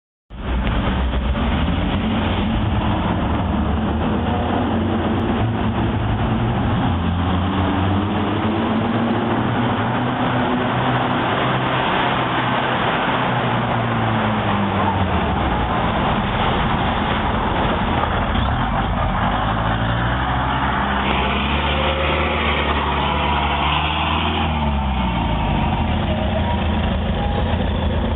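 Heavy bus diesel engine labouring off-road, its engine speed rising and falling several times as it is worked through the terrain.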